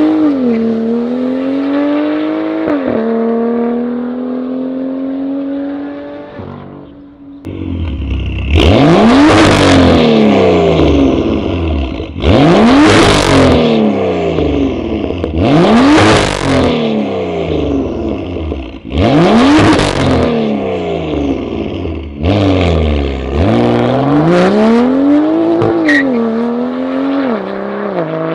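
BMW F87 M2's turbocharged straight-six through an Armytrix straight-pipe valvetronic exhaust. It accelerates hard with two upshifts and fades into the distance. After a short break there are four loud, sharp revs at standstill, each climbing and falling back, about every three and a half seconds; near the end it accelerates again through two more upshifts.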